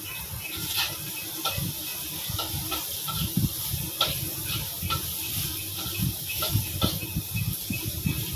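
Chopped chilies and shallots sizzling in a wok as they are stir-fried, with a metal spatula scraping and clicking against the pan every so often.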